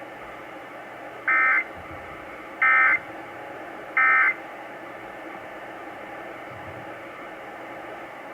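Emergency Alert System end-of-message code: three short bursts of warbling SAME digital data tones, about a second and a half apart, signalling the end of the test alert. Received over AM radio, with a steady hiss underneath.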